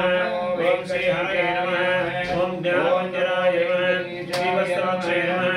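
Male priest chanting Sanskrit mantras in a continuous recitation, over a steady held tone.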